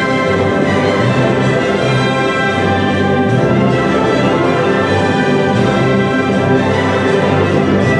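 Orchestral music with sustained brass, playing steadily.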